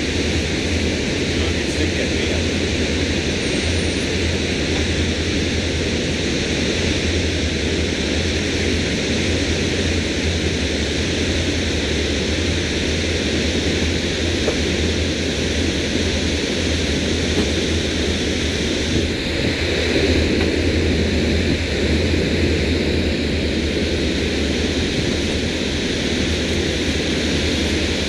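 The Sea Ray's MerCruiser 7.4 L V8 inboard running at idle as a steady low rumble, under a constant rushing hiss.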